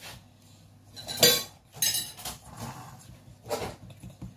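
Kitchen utensils and dishes clinking during baking: a few sharp, ringing clinks, about a second in, around two seconds and again near three and a half seconds.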